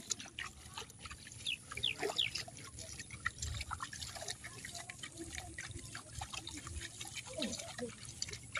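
Light, irregular splashing and dripping of muddy paddy water as a person wades and pushes rice seedlings into the flooded mud, with faint voices in the background.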